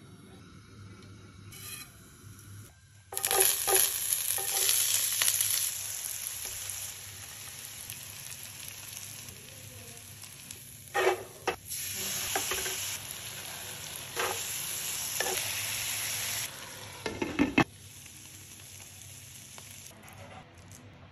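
Chopped onions, chillies and spices sizzling in hot oil in a frying pan on a gas burner, stirred with a wooden spatula. The sizzling starts loudly about three seconds in and changes level a few times. A few sharper knocks and scrapes come around the middle and just before the sizzling stops near the end.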